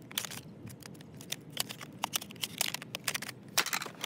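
Rapid, irregular small clicks and taps of hard objects being handled, several a second, with a louder cluster near the end.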